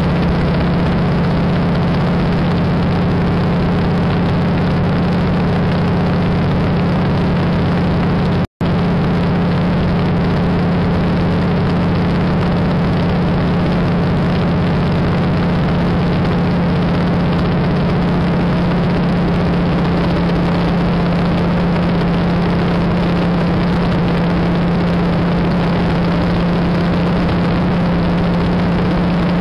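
de Havilland Beaver's Pratt & Whitney R-985 nine-cylinder radial engine and propeller droning steadily in cruise flight, heard inside the cabin. The sound cuts out for a split second about eight seconds in.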